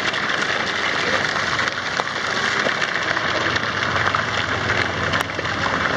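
Water from an overhead spray feature falling and splashing steadily onto the lazy river and the tube riders, a dense patter like heavy rain.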